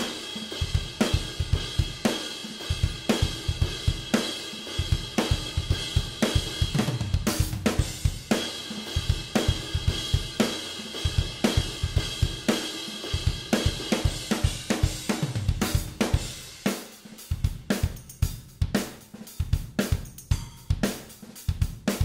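Unmixed multi-track recording of a pop punk drum kit played back on its own: kick, snare, toms, hi-hat and cymbals keeping a steady beat, with the hits coming thicker in the last several seconds. The kicks and toms are blended with Slate drum samples.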